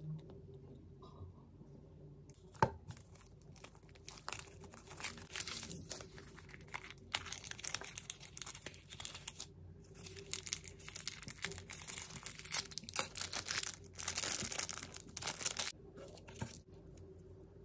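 A surprise toy packet's wrapper being torn open and crinkled in the hands, in uneven bursts of tearing and rustling that are heaviest near the end, before it goes quieter. A single sharp click comes a few seconds in.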